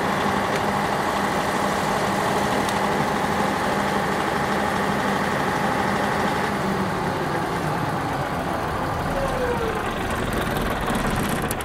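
Generator set's engine running steadily, at first under load. Its steady hum changes about seven seconds in, and a short falling tone follows a little later.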